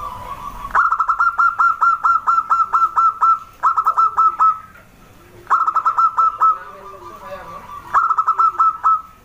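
Zebra dove (perkutut) calling: rapid runs of short, clipped notes, about six or seven a second. They come in four bursts, the first and longest lasting nearly three seconds.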